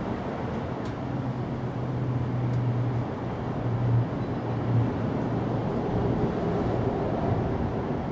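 Steady low mechanical rumble, with a low hum that swells about a second in and fades out after about five seconds.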